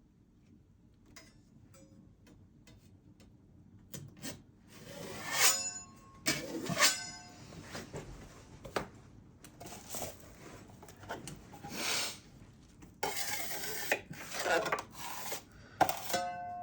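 A metal tool scraping, rubbing and clinking against metal in irregular strokes, some clinks ringing briefly. The sounds start about four seconds in and grow busier toward the end.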